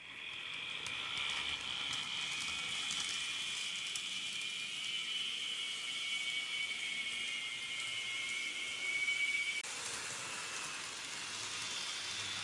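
N-gauge model train running, its motor giving a high, steady whine that sinks a little in pitch. The whine cuts off suddenly after about ten seconds, leaving a softer hiss.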